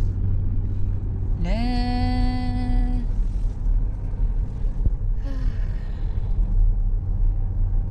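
Steady low rumble of a car driving, heard inside the cabin. About a second and a half in, a voice slides up into one held sung note lasting about a second and a half, and a shorter falling vocal sound comes near the middle.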